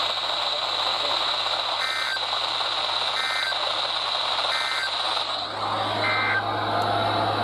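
Weather radio playing EAS/SAME digital data bursts: four short two-tone electronic chirps about a second and a half apart, over steady radio hiss. Coming right after the warning's voice message ends, they are the end-of-message code that closes the alert.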